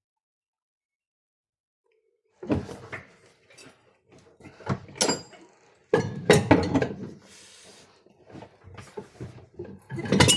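Silence, then a series of irregular knocks, clunks and rattles, as of hard objects being handled and set down.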